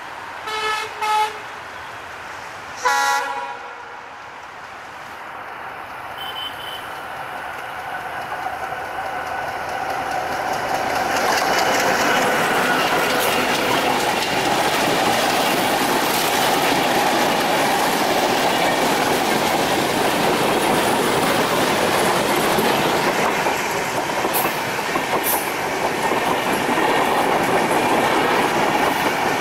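Diesel locomotive horn sounding three short blasts, then the Dhumketu Express, a broad-gauge train of LHB coaches hauled by an ALCO WDM-3A diesel, approaching and running past close by. The wheels clatter over the rail joints, growing louder until the coaches pass steadily from about ten seconds in.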